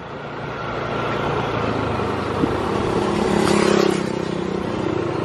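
Yamaha NMAX scooter riding along, its engine hum under steady wind and road noise; the engine note swells louder around three to four seconds in, then eases.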